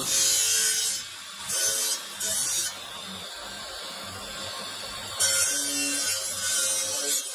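Onyx marble carving ground against a motor-driven abrasive wheel on a spindle: a gritty hissing grind in several bursts as the stone is pressed on and lifted off, the longest near the end, with the motor running between.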